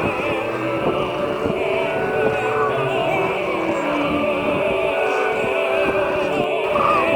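Background music with operatic singing, voices holding long wavering notes.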